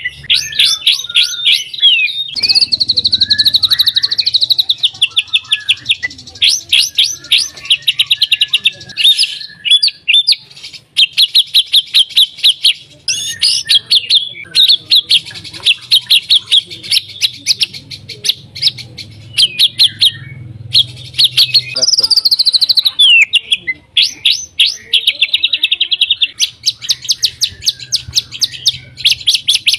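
White-rumped shama (murai batu) singing continuously: fast runs of short rattling notes alternating with warbled whistled phrases, with a falling whistle about two-thirds of the way through.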